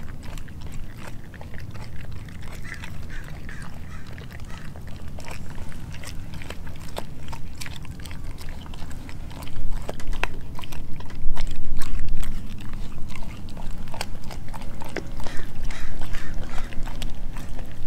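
A Doberman chewing and gnawing raw pork skin, with many sharp clicks of its teeth. It grows louder about halfway through.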